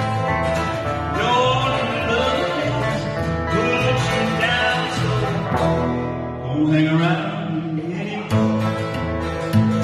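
A country-style trio playing: guitar with a melody line that bends in pitch over steady low bass notes.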